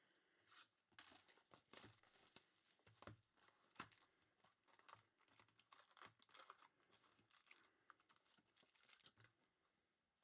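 Faint, irregular crinkling and crackling of trading-card pack wrappers being torn open and cards being handled.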